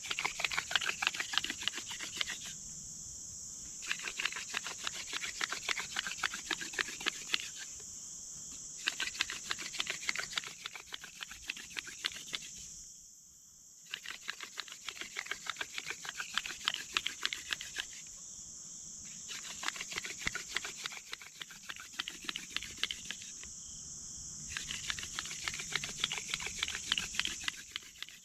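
Hand-drill fire making: a dog fennel spindle spun back and forth between the palms, drilling into a cedar fireboard, giving a rapid scratchy rubbing in runs of a few seconds. Each run breaks off briefly, about every three to five seconds, as the hands go back to the top of the spindle.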